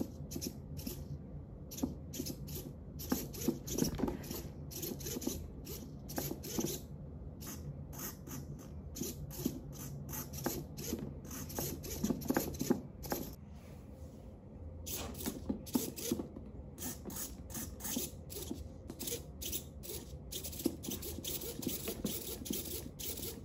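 Small hobby servo motors of an Arduino laser turret whirring in many short, irregular bursts as the laser is steered back and forth, over a steady low hum.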